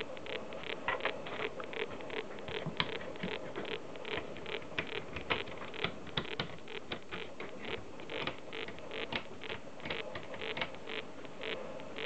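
Philips Magnafox D7529 telephone clock radio recorder sounding a rapid, slightly uneven run of clicks, about four to five a second, kept up without a break.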